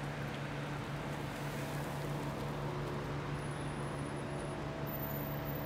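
A steady machine hum with a few fainter higher tones over a constant hiss, unchanging throughout.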